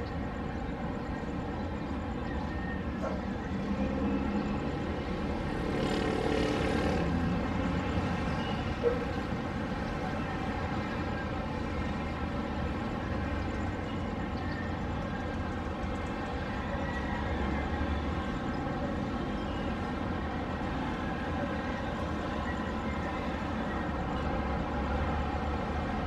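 Steady distant city traffic rumble. An engine grows louder and passes between about four and eight seconds in, its pitch falling as it goes. A single sharp click comes near nine seconds.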